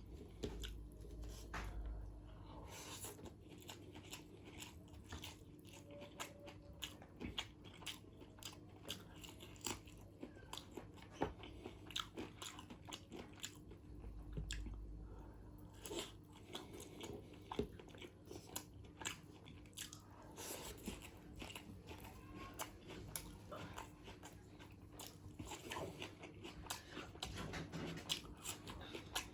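Close-miked chewing and biting of a mouthful of chicken biryani: irregular wet mouth clicks and crunches throughout, over a faint steady hum.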